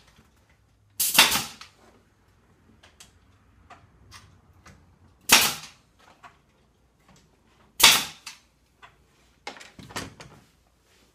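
Pneumatic nail gun firing fasteners into the wooden face frame of a shop cart during glue-up: a sharp shot about a second in, two more spaced a few seconds apart, then a quicker pair of weaker shots near the end, with light clicks and handling of the wood between them.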